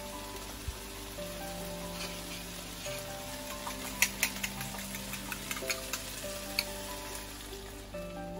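Cherry tomatoes sizzling in olive oil in a frying pan: a steady hiss with a run of sharp pops and spits from the hot oil in the middle. Soft background music plays underneath.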